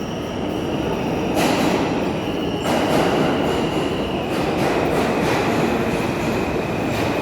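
Subway train running on the rails with a steady rumble and scattered clicks. It grows louder a second or so in, and a steady high wheel squeal sets in a few seconds in.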